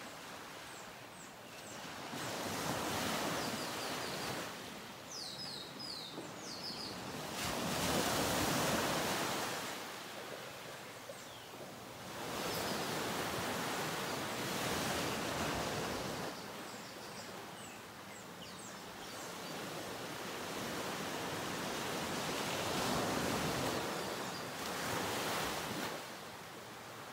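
Ocean surf: waves breaking and washing in, the rush swelling and falling away every few seconds.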